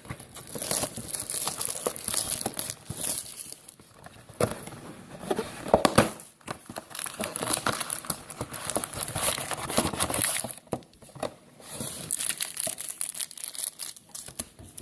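Wrapping of a trading card box and its packs being torn open and crumpled: irregular crinkling and tearing with sharp crackles, loudest a little before the middle.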